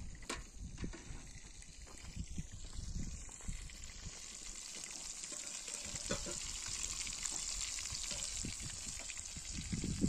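Food sizzling as it fries in hot oil in a pan, the sizzle building up from about three seconds in and growing steadier and louder, with a few soft knocks beneath it.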